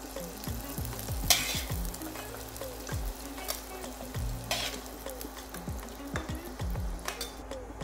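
Sliced onions sizzling in butter in a kadai, with a spatula scraping the pan a few times as they are stirred and lifted out.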